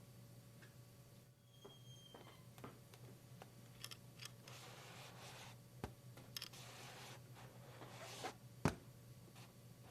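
Live foley sound effects: scattered small clicks and short rustles, a brief high squeak about two seconds in, and a sharp knock near the end.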